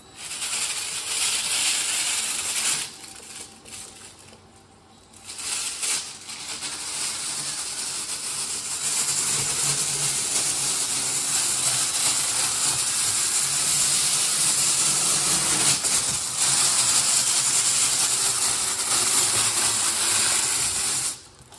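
Drill spinning a dryer-vent cleaning brush on flexible rods inside an aluminium foil dryer hose, the brush scrubbing lint from the hose walls. It runs for a few seconds, drops off for about two seconds, then runs steadily until it stops shortly before the end.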